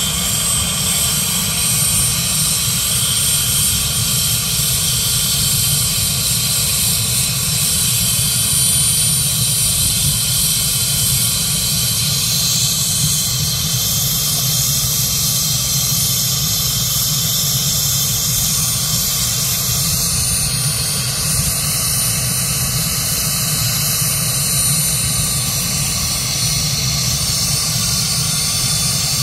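Turbine helicopter running on the ground during engine start-up: a steady, loud jet-like rushing hiss with a thin, high-pitched turbine whine held level throughout.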